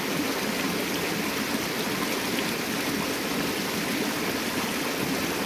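Water of a small stream running steadily.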